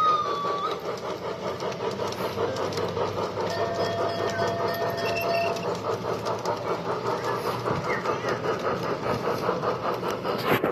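Large-scale garden model trains rolling on the track: a steady rhythmic clatter of wheels over the rail joints, pulsing about twice a second. A whistle tone cuts off under a second in.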